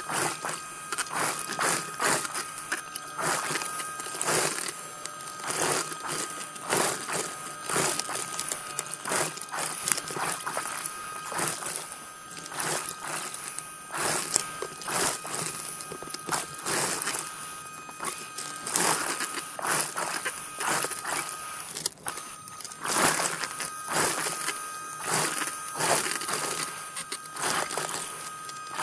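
Diving scooter's motor whining steadily underwater, cutting out for about a second some two-thirds of the way through and then starting again. Frequent irregular bursts of crackling noise run over it.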